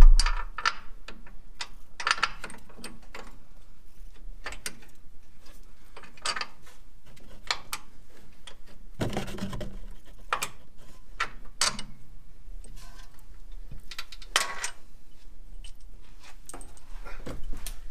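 Irregular metal clicks and clanks of a hand ratchet and bolts being worked into place in a Jeep's front suspension and steering box mounts, with a sharp knock right at the start.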